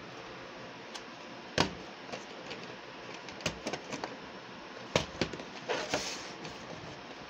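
VHS tapes and their cases being handled: several sharp plastic clicks and knocks, loudest about a second and a half in and again at about five seconds, with a brief sliding rustle around six seconds.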